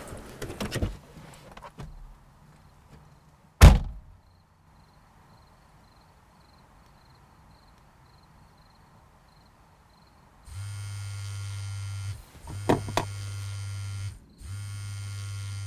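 A car door shut with one heavy thunk about four seconds in. Near the end a steady buzzing comes in three long pulses with short gaps.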